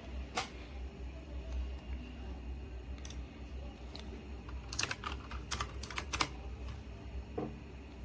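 Keystrokes on a Razer Huntsman Mini's clicky optical switches: a few separate presses, then a quick run of clicks a little past the middle, over a steady low hum.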